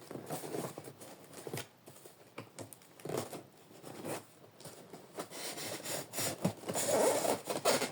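Cardboard box and packing material being handled and pulled apart: irregular rustling, scraping and crinkling with short knocks, busier near the end.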